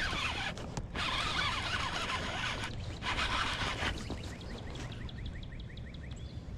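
A fishing reel being cranked to bring in a hooked bass. Irregular noisy scuffling and splashing come first, then a steady rhythmic clicking from the reel at about five or six strokes a second in the last couple of seconds.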